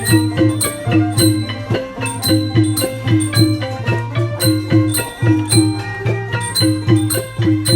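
Background music with a quick, steady percussion beat and a short repeating melody over a sustained low bass.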